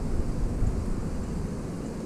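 Low, fluttering rumble of wind buffeting the microphone, over the steady rush of the river current.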